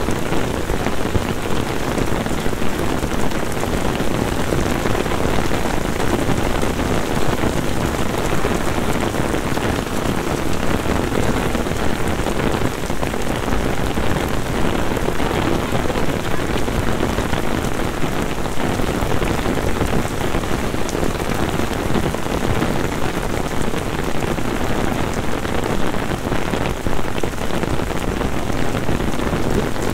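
Heavy rain pouring onto wet stone paving in a sudden summer downpour: a dense, steady hiss of rain on the surface.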